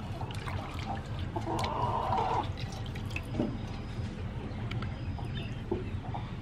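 Water splashing and dripping in a metal basin as a squid tube is rinsed and squeezed out by hand, in small irregular splashes and drips with a louder splashy patch about two seconds in.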